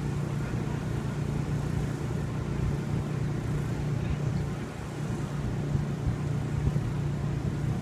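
Gusty wind buffeting the microphone with an uneven low rumble, over a steady low mechanical hum.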